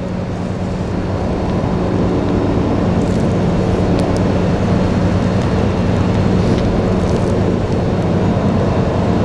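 Steady machine drone with a low hum, running evenly throughout.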